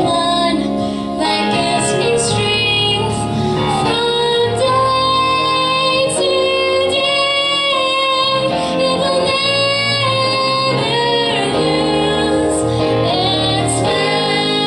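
A church choir singing a gospel song over instrumental accompaniment, with women's voices leading on long, wavering held notes.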